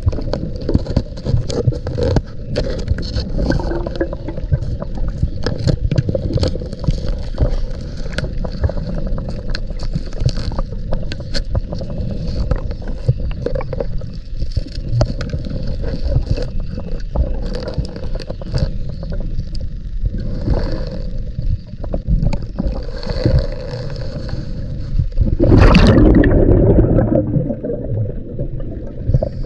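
Underwater scuba-diving sounds heard through a camera housing: a steady low rumble with many small clicks and scrapes as a cave-line reel is handled, and a loud rush of bubbles about 26 seconds in.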